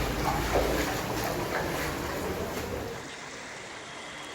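Running floodwater with wind buffeting the microphone. The sound eases about three seconds in.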